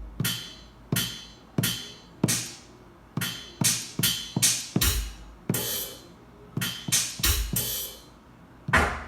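Drum-machine hits from the DJ pad of a JBL PartyBox 1000 party speaker, tapped in by hand: about fifteen single kick- and snare-like strikes at uneven spacing, some with a deep thud.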